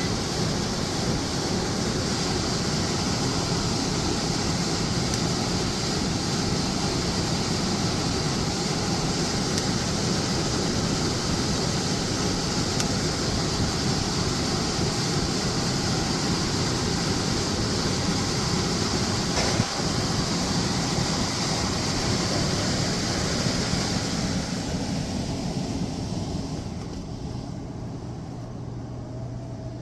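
Goodman electric furnace running after its contactor wiring was refastened: a steady rush of air from the blower, with one click about two-thirds of the way in. Near the end the rush eases off, leaving a low steady hum.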